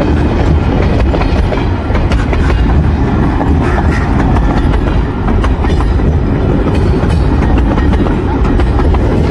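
Passenger train coaches rolling past close by: a loud, steady rumble of wheels on rail with irregular clacks and rattles.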